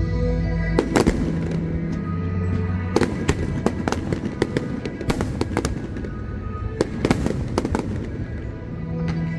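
Aerial fireworks bursting in rapid, irregular cracks and bangs, starting about a second in and coming thick and fast for the rest, over show music played through loudspeakers.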